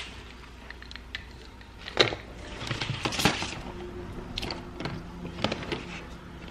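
Soft handling noises as small packaging and products are moved about: scattered light rustles and clicks, with sharper taps about two seconds in and around three seconds in.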